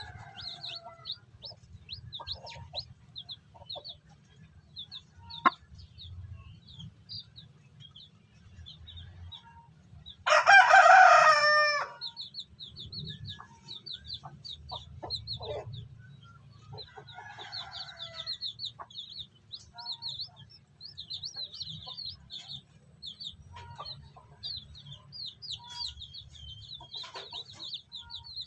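Newly hatched native chicks peeping: runs of short, high, falling chirps. About ten seconds in, a rooster crows once for under two seconds, the loudest sound.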